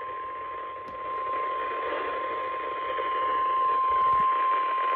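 NOAA Weather Radio 1050 Hz warning alarm tone: one steady, unbroken high tone over radio static. It signals that a weather warning broadcast is about to follow.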